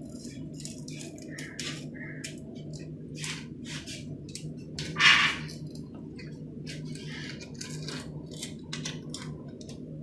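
Paint scraper scraping old silicone sealant off the edge of a granite countertop in many short, irregular strokes, one louder stroke about halfway through. A steady low hum runs underneath.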